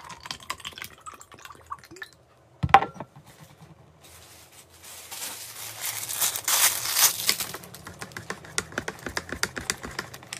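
Liquid pouring into a plastic cup, then a single sharp knock a little under three seconds in. After that comes a plastic straw wrapper crinkling as it is torn off, loudest around the middle, and then quick clicks of the straw stirring in the cup.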